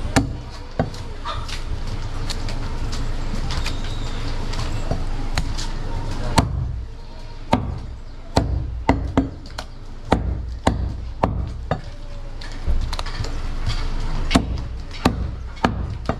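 Heavy butcher's knife chopping goat meat on a wooden chopping block: sharp, irregular thwacks, a few at first, then one or two a second through the second half, over a steady low background hum.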